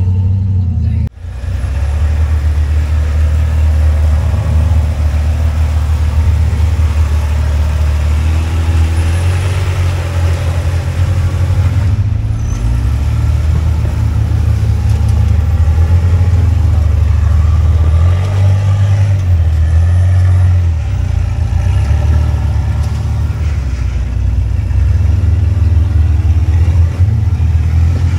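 Jeep engine running off-road at low revs, the note rising and falling as it works over the terrain, with a brief drop-out about a second in.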